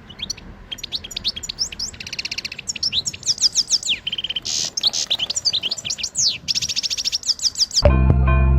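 A songbird singing a fast, varied song of quick chirps and short trills. Music comes in near the end.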